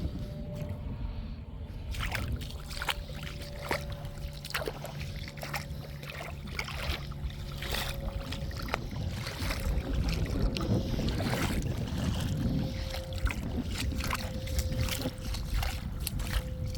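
Footsteps crunching over rough shoreline ground, with wind rumbling on the microphone and a faint, steady distant engine hum.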